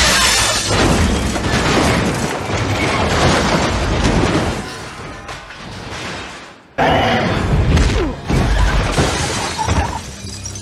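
Film action sound effects: glass shattering and crashing, with heavy hits over background score. The sound dies down about two-thirds through, then comes back with a sudden loud hit.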